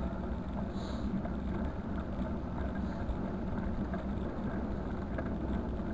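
Steady low rumble of wind buffeting the microphone outdoors, with no distinct events.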